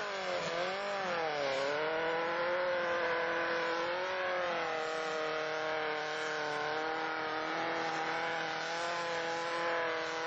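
Mud-racing vehicle's engine revving up and down a few times, then held at high, steady revs.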